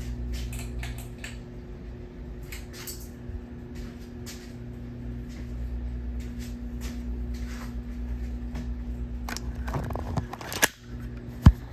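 Hampton Bay Huntington III ceiling fan running on high: a steady motor hum with scattered light ticks, and a couple of sharp clicks near the end.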